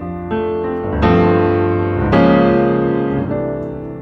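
Background piano music: chords struck about once a second and left to ring out.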